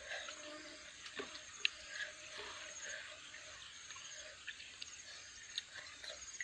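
Faint insects chirping in short repeated high trills, with a few small sharp clicks.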